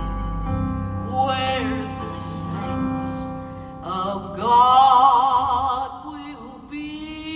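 Live southern gospel singing with instrumental accompaniment: the singers hold long notes with vibrato over sustained chords, swelling loudest about four to six seconds in.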